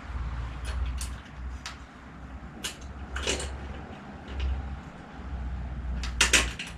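Metal clinks and knocks of a hand tool working at a bicycle's rear wheel, a handful of separate strikes with a louder clank near the end, over a low rumble that comes and goes.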